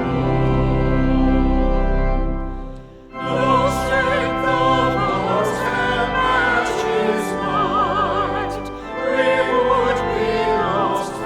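Sung sacred music: voices singing with vibrato over a sustained, organ-like accompaniment. The music pauses briefly about three seconds in, then goes on.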